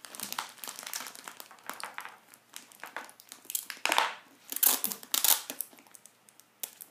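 Plastic bag of ironing beads being handled and crinkled: irregular rustling, with a few louder crackles about four and five seconds in.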